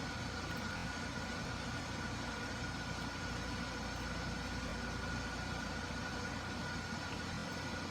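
Steady mechanical hum with a thin, constant high whine, unchanging throughout.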